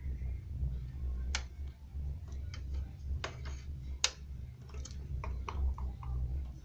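Sharp plastic clicks and taps from PC components being handled, louder about a second and a half, three and four seconds in, with smaller clicks after, over a low steady hum.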